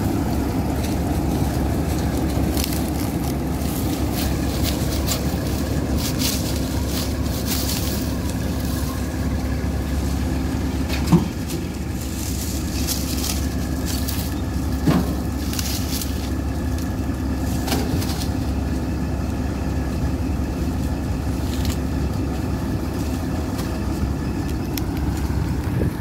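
NSG 930 combine harvester's engine idling steadily with a constant hum, while the machine stands still. Two sharp knocks a few seconds apart come through midway.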